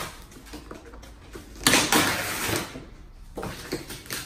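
Cardboard and paper packaging being torn and handled by hand: scattered rustling, with one louder noisy burst about two seconds in that lasts under a second.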